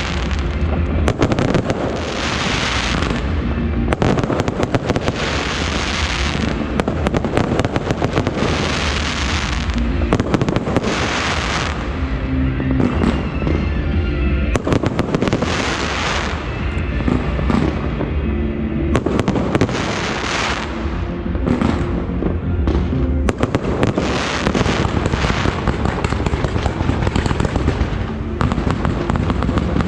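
Fireworks going off continuously: many sharp bangs and crackles, with a loud hissing rush every couple of seconds, and music faintly underneath.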